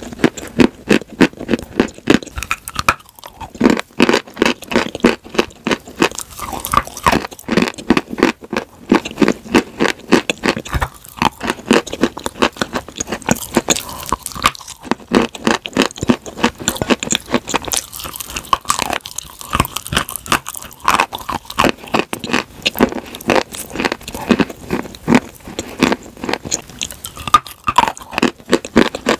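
Close-miked crunching and chewing as a person bites into hard, crumbly pieces of white chalk and clay coated in a creamy paste: a dense run of rapid crunches with a few short pauses between bites.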